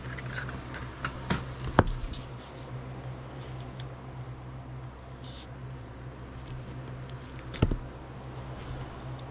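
Clear hard-plastic trading-card holders handled and set on a wooden tabletop: a few sharp plastic clicks and taps, the loudest about two seconds in and again near the end, over a steady low hum.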